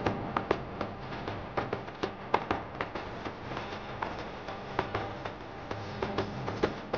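Background music in a sparse passage: scattered percussive taps and clicks over faint low sustained tones.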